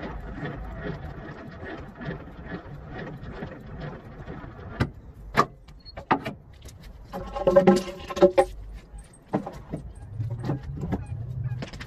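Metal clicking and clanking as a semi-trailer's landing-gear crank handle is worked and then hung up, with a burst of ringing metal clanks about two-thirds of the way through. Tire chains hanging beside it jangle. A truck engine rumbles low in the background.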